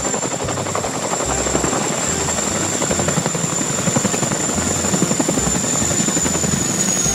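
Boeing CH-47 Chinook tandem-rotor helicopter hovering low and touching down: a fast rotor beat over a steady high whine that drops slightly near the end.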